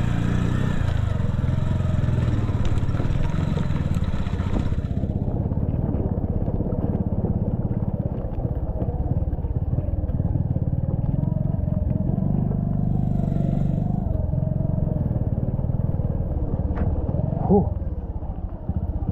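Bajaj CT 100 motorcycle's single-cylinder four-stroke engine running steadily under way, carrying two riders. A hiss sits over it and stops about five seconds in.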